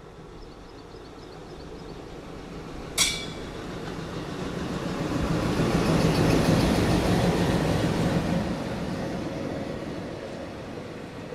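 WDM-3D ALCo diesel locomotive passing close on the next track, its engine growing louder as it comes up, loudest as it goes by, then giving way to the rumble of its coaches rolling past. A single sharp metallic clank about three seconds in.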